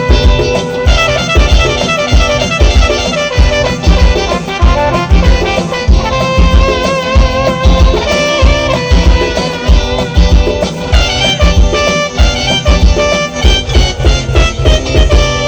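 Instrumental passage of a Bengali song played loud over a PA system, with a steady drum beat about twice a second under a melody line on a reedy wind or string instrument.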